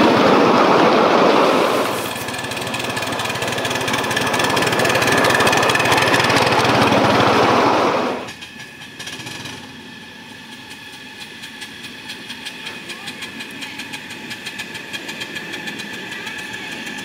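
Ride-on live-steam locomotive modelled on Waimanalo Sugar Co #3, with its train of cars, rumbling past over the rails, loud and steady. About eight seconds in the sound drops sharply, and the locomotive's exhaust chuffs at about three beats a second, growing louder as it comes closer.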